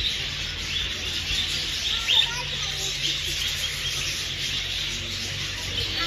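A flock of budgerigars chattering and chirping continuously, a dense high twittering with one louder chirp about two seconds in.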